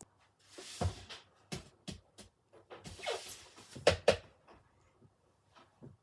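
Handling noises at a refrigerator: scattered clicks, two brief rustling swells, and two sharp knocks in quick succession a little after the middle.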